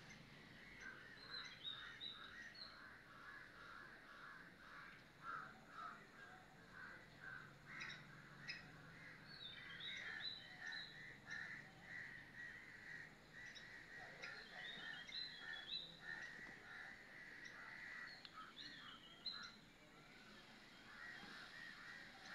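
Faint calls of several wild birds: a run of short repeated calls, with brief higher chirping phrases that come and go.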